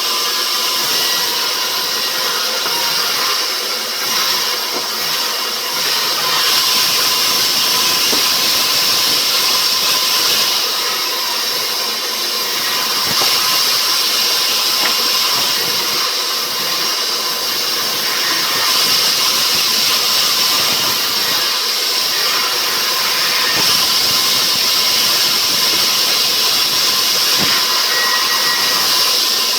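Sawmill machinery cutting rubber wood, running steadily: a loud hiss with a faint steady whine, swelling a little now and then.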